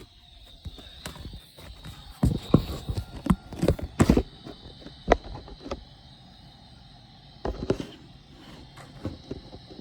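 Irregular sharp clicks and knocks of Nerf blaster play: blasters being handled and fired and darts hitting. They come in a cluster from about two to four seconds in and again briefly near eight seconds in.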